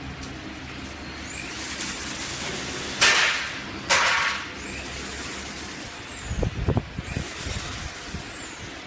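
Pneumatic press of a radio-frequency PVC welding machine: two sharp hisses of released air, about a second apart, roughly three seconds in, then a short run of low knocks. Three high whistles, each rising and then falling, sound over the machine noise.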